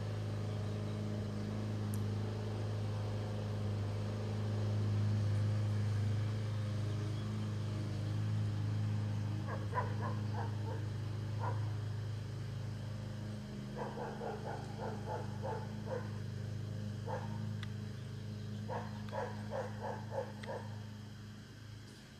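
A dog barking in quick runs of several barks, starting about ten seconds in, over a steady low hum that fades away about halfway through.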